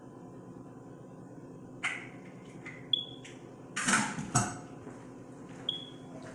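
Kitchenware clattering: a handful of sharp clinks and knocks, two of them ringing briefly, with a louder rattle about four seconds in, over a steady low room hum.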